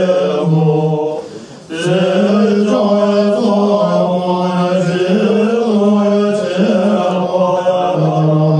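Tibetan Buddhist monks chanting together in a melodic recitation, holding each note, with a brief pause for breath about a second and a half in.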